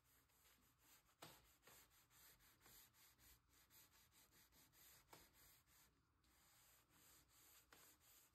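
Near silence: the audio is all but muted.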